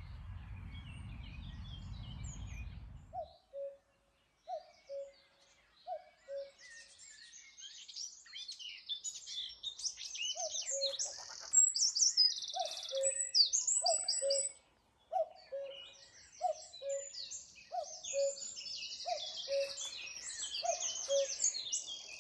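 Common cuckoo calling its two-note "cuck-oo", the second note lower, repeated about once a second in two runs, the first starting about three seconds in and the second about ten seconds in. Other songbirds sing higher, louder trills and chirps over it, mostly in the second half. A low rumble fills the first three seconds.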